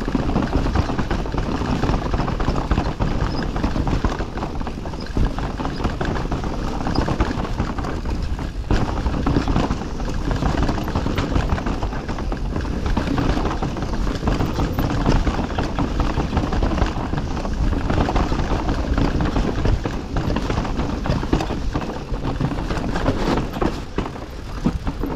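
Enduro mountain bike rolling along a forest trail: tyres running over dirt and roots, with a constant rumble and dense rattling and knocking from the bike over the bumps.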